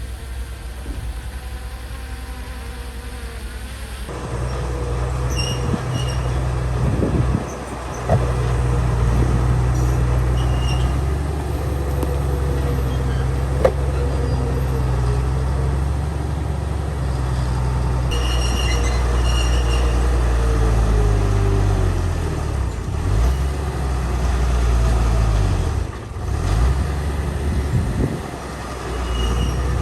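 Heavy diesel earthmoving machinery running: a deep engine drone that grows louder about four seconds in, then rises and falls with load, dipping briefly a few times near the end. Short high squeaks come through here and there.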